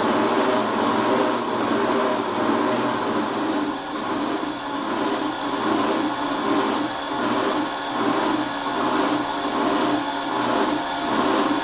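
Robot vacuum cleaner running: a steady motor and brush whir that swells and fades in a regular rhythm, more than once a second.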